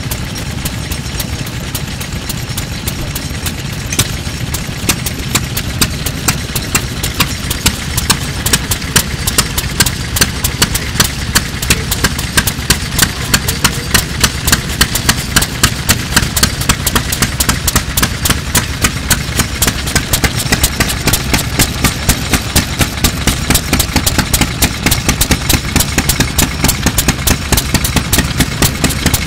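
Single-cylinder Yoshida 1.5 hp farm kerosene engine (石油発動機) from around 1925, running at low speed. It gives a regular train of sharp exhaust beats with mechanical clatter from the valve gear, and the beats grow stronger after about four seconds.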